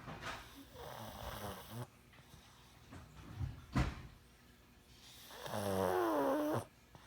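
A sleeping pug snoring. There is a raspy snoring breath lasting over a second, then a short sharp snort, and near the end the loudest part: a long, pitched, wavering snore that stops abruptly.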